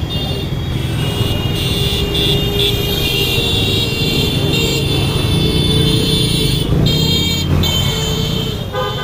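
Many small commuter motorcycles riding past in a steady stream, their engines running together in a continuous rumble, with short horn toots several times.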